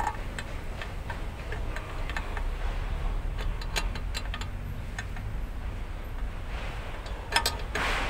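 Light metallic ticks and clicks from handling and fitting the key (caging) bolt into the back of a truck's air-brake chamber, scattered and irregular, with a quick cluster of clicks and a short scraping rush near the end.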